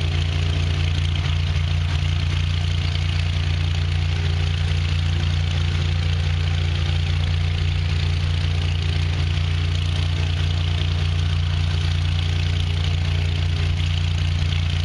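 Single-engine high-wing light aircraft's piston engine and propeller running steadily at low power, with a deep, even drone and no change in pitch.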